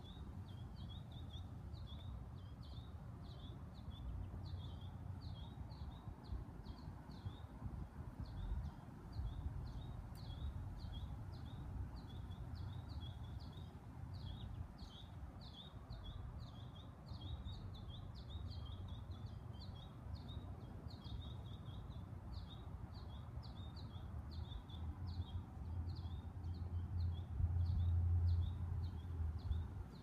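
Steady series of short high chirps, about two a second, over a low rumble that swells near the end.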